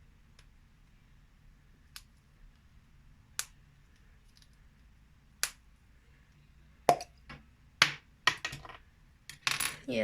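Sharp clicks and taps of containers being handled: a few single ones spaced a couple of seconds apart, then several in quick succession over the last three seconds.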